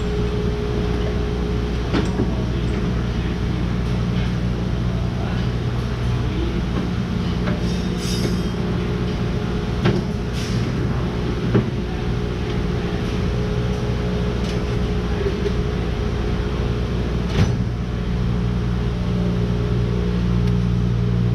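Steady machine hum with a few sharp knocks scattered through it.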